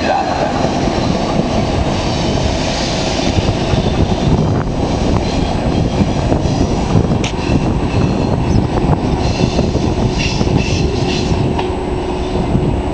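ETR500 high-speed electric trainset running away along the track, a steady rumble of rail noise with a few sharp clicks. A brief higher-pitched squeal comes about ten seconds in.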